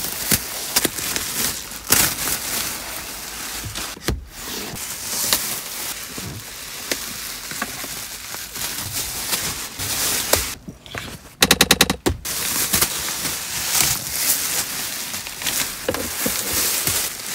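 Protective plastic seat covers being pulled off and bunched up, giving a dense run of crinkling and crackling. About eleven seconds in comes a brief rapid rasp, the loudest moment.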